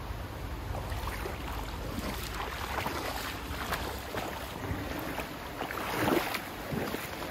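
Wind buffeting the microphone as a steady low rumble, with scattered crackles that are loudest about six seconds in.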